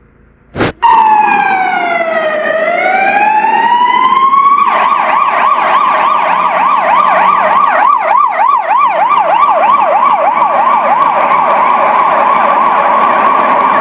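Electronic siren, loud, starting with a click. It gives one slow wail that falls and then rises, then switches about five seconds in to a fast yelp, sweeping up and down about three times a second.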